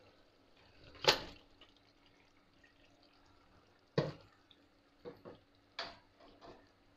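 Raw chicken pieces tipped from a steel bowl into a pot of oily masala: a sharp knock about a second in, then a wet plop about four seconds in and a few softer plops and knocks after it.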